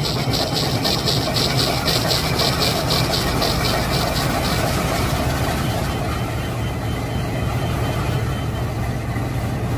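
Toy train running: a steady motor hum with a fast, even clicking, several clicks a second, that fades out about halfway through.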